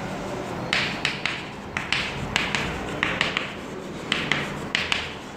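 Chalk writing on a chalkboard: a run of short scratching strokes and taps, about two a second.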